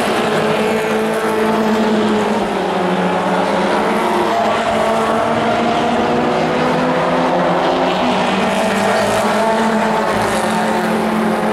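Pack of Pro4 race trucks running laps on a short oval, several engines at speed at once, their pitches slowly rising and falling as they come round.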